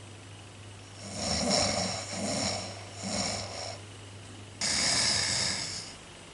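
A person snoring: three short snores in quick succession, then a louder, longer one that starts suddenly near the end.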